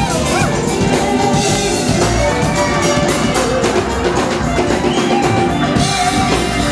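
Loud music with a drum kit keeping a steady beat.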